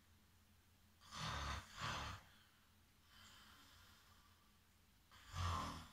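A man snoring: two snoring breaths a little after a second in, a faint breath around three seconds, and another snore near the end.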